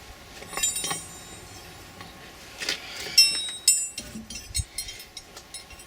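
Small forged steel J hooks clinking against each other and being set down on a hard surface, several separate metallic clinks with a short ringing tail.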